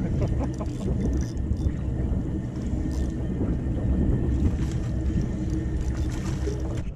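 Steady low rumble of wind and water around a small open boat, with a few faint clicks.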